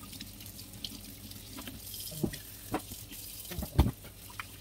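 Kitchen tap running into a stainless-steel sink while hands wash something under the water. A few knocks sound against the sink, the loudest just under four seconds in.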